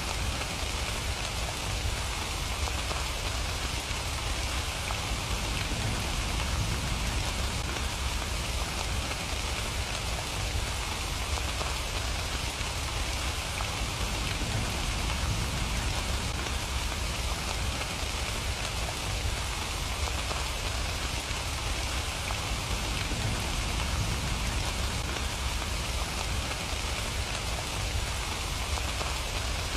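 Steady rain falling, an even hiss of many drops with a low rumble underneath.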